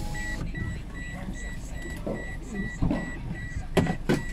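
Car power-window motor whirring to a stop about half a second in, with a high electronic beep repeating about twice a second throughout. Two sharp knocks near the end.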